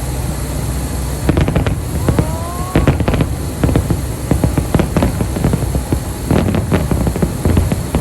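Fireworks display going off: after a steady low rumble, a rapid irregular string of sharp bangs and crackles starts about a second in and keeps going, with a short rising whistle a couple of seconds in.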